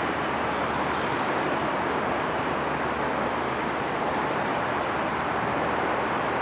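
Steady harbourfront background noise: an even, unbroken rumble of distant city traffic and boats over the water, with no single event standing out.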